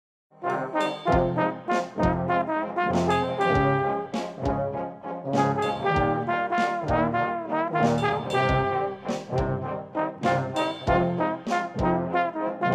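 A trombone ensemble playing brass music over a steady beat of sharp hits, starting just after a moment of silence.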